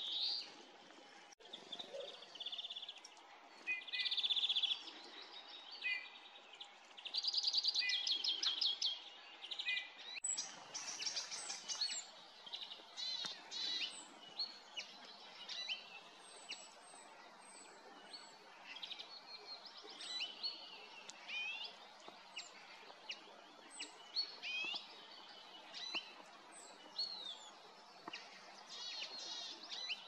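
Several songbirds, European greenfinches among them, calling and singing in short overlapping phrases, with fast trills standing out about four and eight seconds in.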